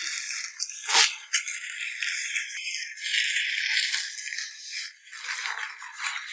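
Aluminium foil crinkling and rustling as it is folded and pressed around a chicken, with one sharper crackle about a second in.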